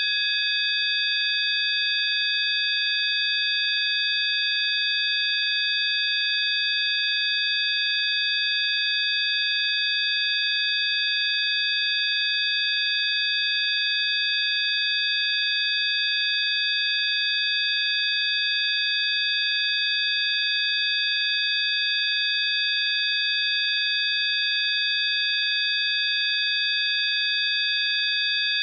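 Synthesized healing-frequency tones: several steady, high-pitched sine tones sounding together without any change, with a faint hiss around them.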